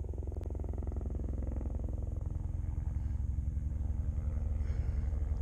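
Rescue helicopter approaching: a fast, even rotor beat with a steady engine tone, getting louder toward the end.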